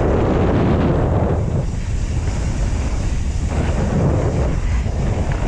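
Wind rushing over a GoPro's microphone as a Pyga Hyrax enduro mountain bike rides fast down a dirt trail, with the steady rumble of knobbly tyres on the dirt beneath it.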